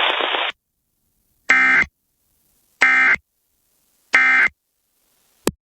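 Emergency Alert System end-of-message signal: three short bursts of screeching digital data tones, about a second and a third apart, marking the end of the alert. A brief click follows near the end.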